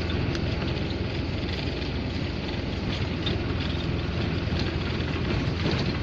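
Steady low rumble of engine and road noise heard inside the cab of a GAZelle van driving along a town street.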